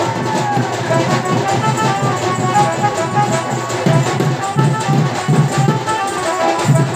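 Sambalpuri folk dance music with no singing: a barrel drum (dhol) beaten in a steady rhythm under a melody of short, quick notes. The drum strokes grow stronger about halfway through.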